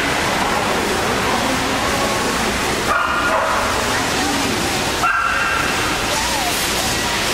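A dog barks twice, about three and five seconds in, over the steady hubbub of people talking in a large hall.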